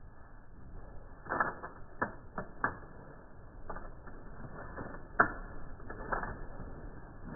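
Scattered clicks and knocks, about a dozen at uneven intervals, with the sharpest a little after five seconds in.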